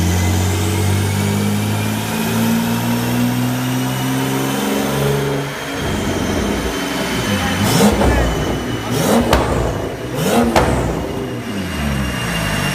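2016 Porsche 911 Turbo S's twin-turbo flat-six running under load on a chassis dyno, its pitch climbing slowly for about five seconds with a high whine rising along with it, then dropping off. It is then blipped several times, each rev rising and falling quickly, with sharp cracks at some of the peaks.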